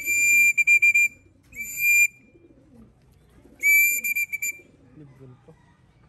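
A high-pitched whistle blown in three blasts, the first and last broken into quick pulses: a fancier calling racing pigeons that are circling over the loft to come down and go in.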